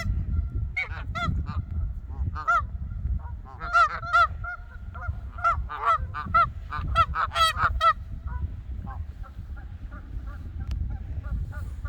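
Geese honking: many short, overlapping calls, busiest in the middle and thinning out toward the end, over a steady low rumble.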